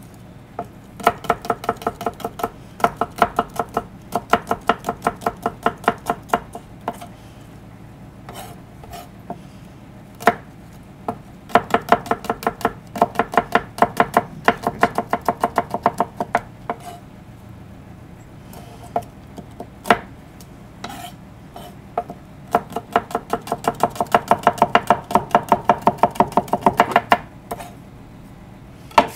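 Food being chopped rapidly, quick knocks about five a second in three runs of several seconds, with a few single strokes between.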